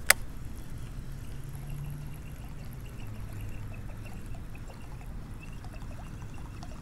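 Soft water trickling and lapping, with a single sharp click right at the start.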